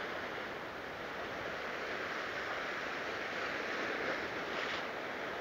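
Ocean surf washing steadily over the shoreline rocks, with a slight swell near the end.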